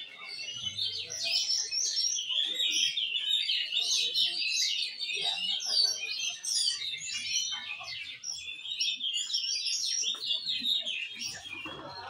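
Many Oriental magpie-robins (kacer) singing at once, a dense, unbroken chorus of quick whistles and chirps.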